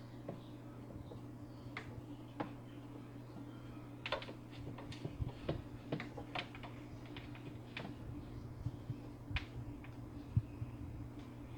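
AQQA 6-in-1 electric aquarium gravel vacuum (20 W pump) running with a steady low hum while vacuuming the tank. Scattered light clicks and taps come over it, busiest a few seconds in.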